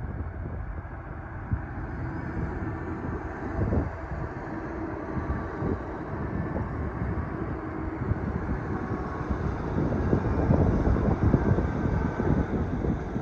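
Doosan DX420LCA excavator working, heard from inside the cab: the engine and hydraulics run steadily, with knocks and clatter that build to their loudest about ten seconds in.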